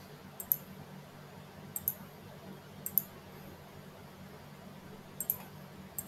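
Computer mouse button clicking: four quick double clicks spaced a second or so apart, over a low steady hum.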